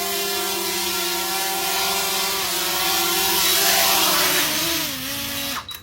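DJI Mavic Mini quadcopter's motors and propellers running with a steady whine. About four and a half seconds in the pitch drops, and just before the end the sound cuts off suddenly.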